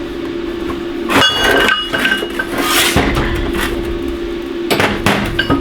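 Heavy steel bearing parts clanking and knocking as the centre race of a large ball bearing is worked free of the outer race. There are several separate knocks, one followed by a brief metallic ring, over a steady hum.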